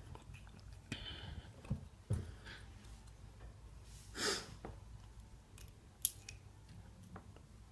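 Faint, scattered small metallic clicks and taps of tweezers and lock pins while the pin stacks are taken out of a Ruko lock cylinder and laid down. There is a short breath about four seconds in.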